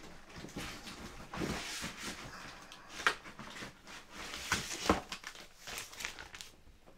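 Handling noise: rustling and light knocks as hard plastic graded-comic slabs are moved and set down, with the sharpest knocks about three and five seconds in.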